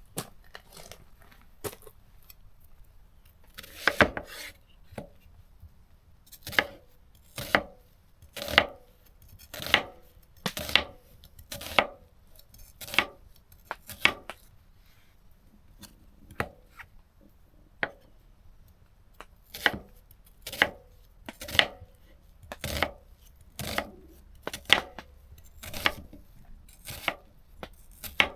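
Knife chopping food on a cutting board, most likely onions: a long run of slow, separate chops, about one a second, with a few lighter taps at first.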